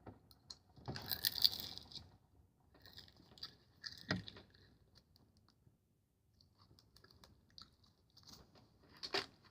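Toy packaging being handled and picked at while it resists opening: a few short, faint crinkling bursts and a sharp click about four seconds in.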